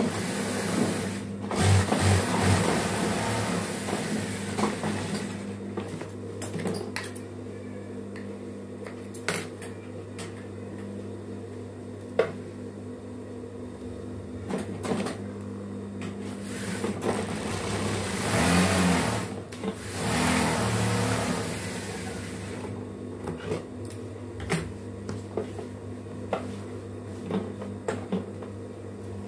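Industrial lockstitch sewing machine running with a steady motor hum. It stitches in fast runs, one long run in the first few seconds and two more a little past halfway, with scattered clicks in between as the fabric is handled.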